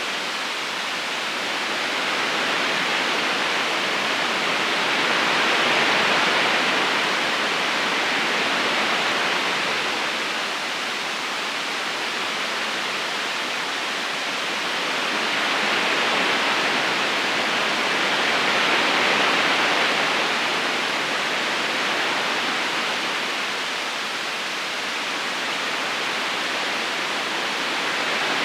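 River current rushing steadily over stones, an even watery hiss that slowly swells and eases twice.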